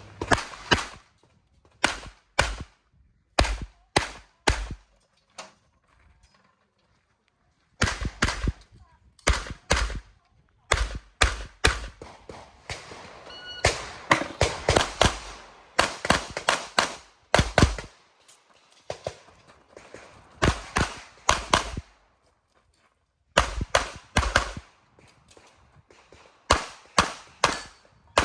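A Tanfoglio pistol fired in rapid strings of shots, several in quick succession at a time, with short pauses between strings and a longer gap about six seconds in.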